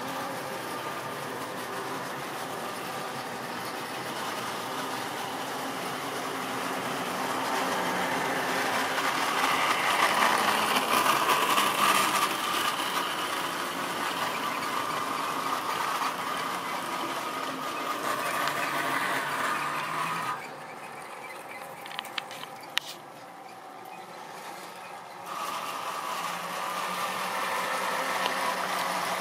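Tri-ang OO-gauge model trains running on the layout's track: a steady motor hum with wheels rattling over the rails, louder as a train of tank wagons passes close. About two-thirds of the way through it drops to a quieter stretch with a few sharp clicks, then the running noise resumes.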